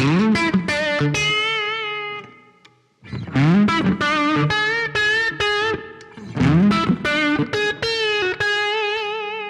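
Electric guitar played through its neck humbucker pickup: three short melodic phrases of single notes, sliding up into notes and held with vibrato, with a brief pause about three seconds in.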